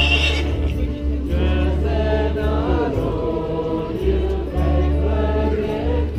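A group of street singers singing a Czech Christmas carol together, several voices holding and gliding between notes. A low rumble comes and goes underneath.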